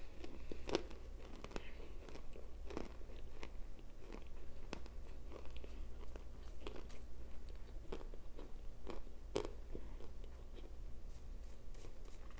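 Chewing on a mouthful of crunchy chunks of compressed cornstarch, close to a lapel microphone: irregular crisp crunches and snaps, the loudest about nine seconds in.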